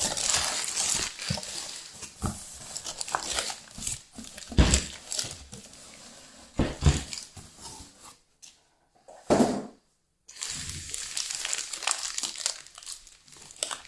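Packing paper and wrapping being pulled from a cardboard box and crumpled by hand, with irregular crackling and rustling. A few dull thumps come from the box being handled, and the sound drops out briefly about eight and ten seconds in.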